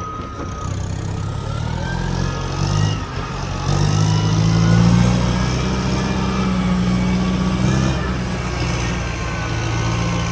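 Heavy vehicle engine running, picking up revs and getting louder about three and a half seconds in and then holding steady, with a faint whine gliding above it.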